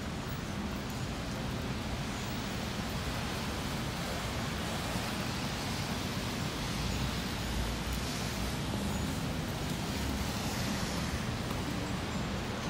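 Steady wet-street ambience: an even hiss of rain and tyres on wet pavement over a low traffic rumble, the hiss swelling a little twice in the second half as cars pass.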